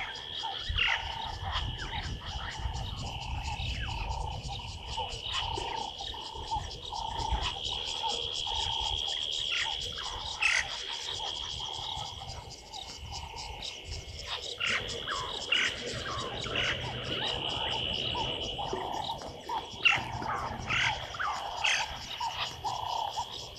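Bush ambience of insects and birds: a steady high insect drone with very fast ticking, and many short bird calls that fall in pitch, scattered throughout.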